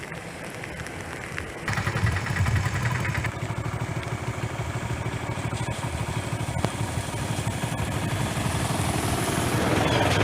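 An engine running steadily with a fast, even pulse, growing louder about two seconds in.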